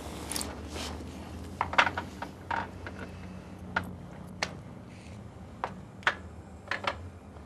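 Small items clicking and tapping as they are picked up and set down at a glass display case: about a dozen light, irregular clicks and knocks, the sharpest a little under two seconds in, over a steady low hum.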